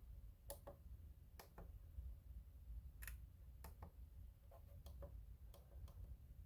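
Faint, irregular small clicks and taps, about a dozen, over a low steady hum: hands handling small hobby gear or pressing controls.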